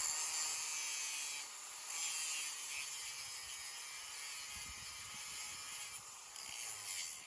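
Grinder with a thin PFERD wheel cutting through metal: a steady, high hiss.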